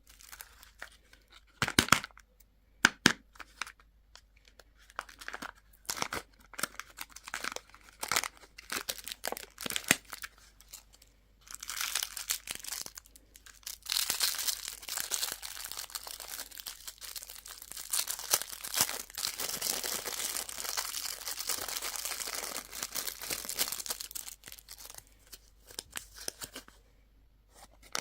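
A candy wrapper being handled and torn open. First come scattered sharp crinkles and snaps, then about thirteen seconds of continuous crinkling and tearing, which then dies away.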